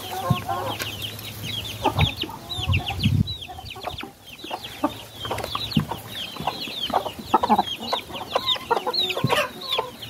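Free-range chickens clucking, with many short, high, falling chick peeps throughout.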